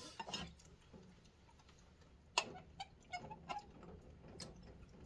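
Scattered light clicks and clinks of a glass blender jug and drinking glass being handled while fruit juice is poured, the sharpest click about two and a half seconds in.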